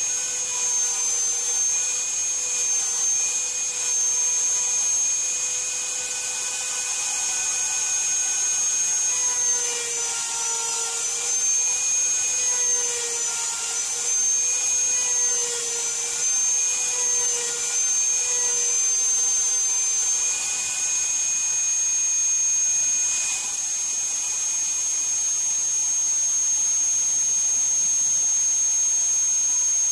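CNC router spinning a 1/4" end mill as it mills a pocket in Iroko hardwood, a steady high-pitched whine. Lower tones beneath it waver and dip in pitch through the middle as the cutter loads up in the cut, then fade in the last third while the high whine carries on.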